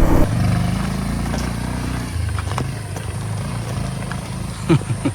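Bajaj Pulsar 150 motorcycle's single-cylinder engine running under a rider and a pillion passenger, its note dropping about two seconds in as the throttle eases or a gear changes.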